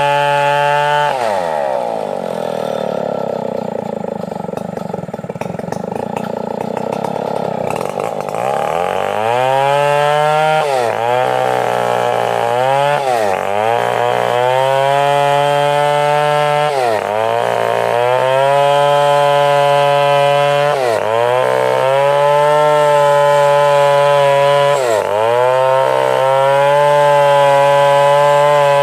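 Stihl 070 two-stroke chainsaw running. Its pitch falls from full throttle to a lower run about a second in, rises back to full throttle near nine seconds, then holds high with a short dip every few seconds.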